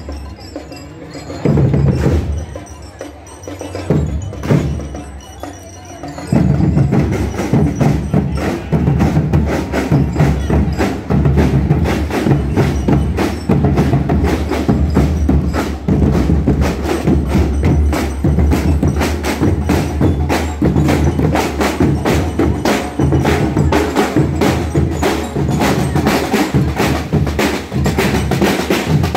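Marching school percussion band playing: bass drums, snare drums and cymbals with the ringing notes of bell lyres. It starts with a few scattered strokes, and about six seconds in the whole band comes in with a steady, fast beat.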